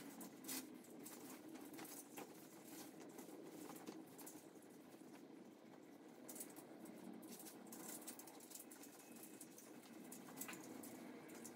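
Faint rustling and scattered light clicks of a saree's fabric being unfolded, shaken out and gathered by hand.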